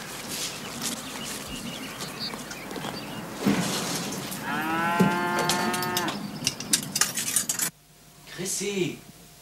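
A cow mooing once: a single long call of about a second and a half, starting about four and a half seconds in. It is followed by a run of sharp clicks and knocks, and the outdoor background cuts off suddenly near the end.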